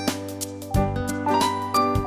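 Upbeat background music with a steady beat: plucked and keyboard-like instrument notes over a bass line.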